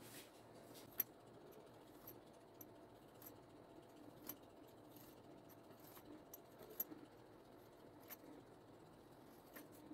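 Near silence with scattered light clicks and ticks from a metal fluted pastry wheel rolling through a thin sheet of dough on baking paper and cutting it into strips; the sharpest click comes about a second in.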